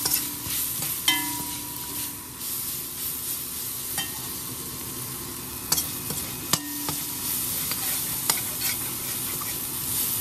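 Shallots, chili, garlic and spices sizzling as they sauté in a stainless steel pan, stirred and scraped with a metal slotted spoon. The spoon knocks against the pan now and then, and twice the pan rings briefly after the knock.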